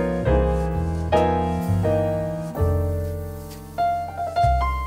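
Background piano music: chords struck about once a second and dying away over low held bass notes, with a short higher run of notes near the end.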